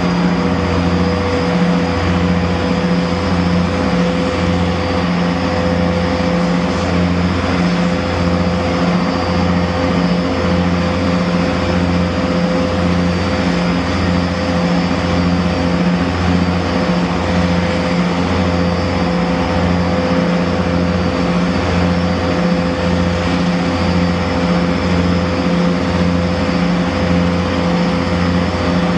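Boeing Jetfoil 929-115's gas turbines idling during engine warm-up, a steady high whine over a low hum that throbs evenly about once every second and a half.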